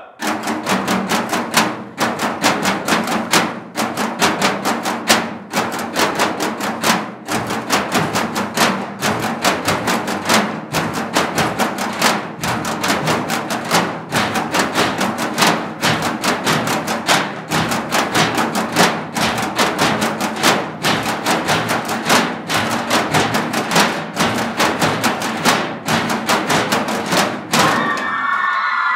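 Drumsticks beating a fast, steady rhythm on galvanized metal trash cans, an ensemble of drummers playing together. Near the end the beating stops and voices shout out.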